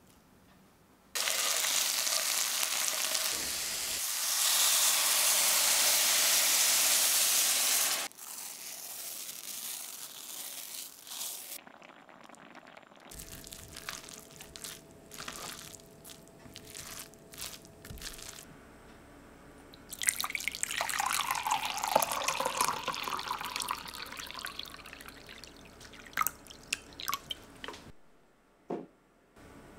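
Kitchen cooking sounds one after another: a loud steady hiss lasting several seconds, then light clicks and scrapes of a spatula in a cast-iron skillet, then liquid pouring into a vessel with a pitch that dips and rises, and a few sharp taps near the end.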